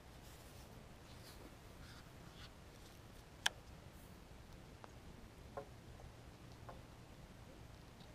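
Quiet outdoor background with a few faint, short clicks, one sharper click about three and a half seconds in.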